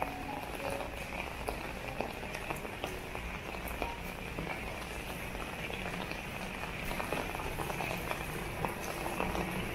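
Drizzle falling on an umbrella and wet pavement: a steady hiss with many small scattered drop ticks.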